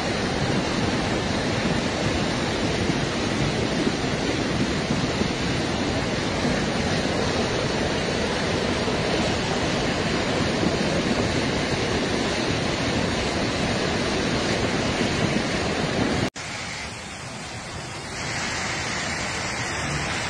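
Floodwater torrent rushing through a street, a loud steady rush of water. It drops out suddenly about sixteen seconds in and returns as a quieter rush of water.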